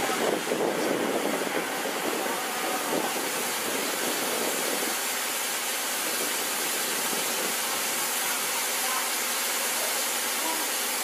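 Steam locomotive C61 20 hissing steam steadily, with a low rumble that fades out about five seconds in.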